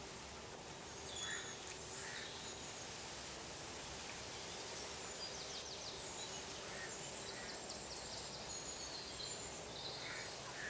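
Quiet outdoor background: scattered short, high bird chirps and a couple of quick rattling trills over a faint steady hum.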